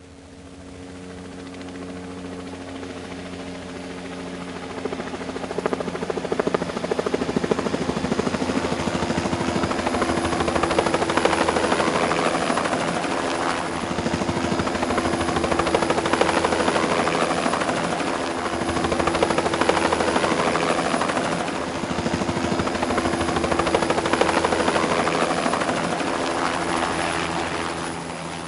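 Helicopter rotor chopping in fast, even beats over a steady engine hum, fading in over the first few seconds, then swelling and easing in loudness several times before fading near the end.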